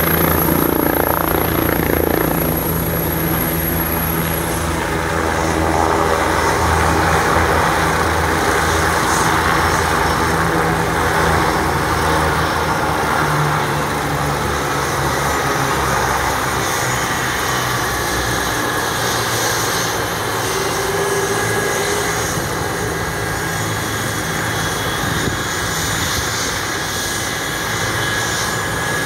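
Air ambulance helicopter idling on the ground just after landing, turbine engine and main rotor still running. The low rotor beat weakens about two-thirds of the way through, and a thin steady whine comes in over the running noise.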